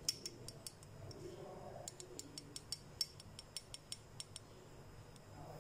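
Light, irregular clicks and clinks of a small measuring spoon against a glass bowl as salt is scooped and levelled.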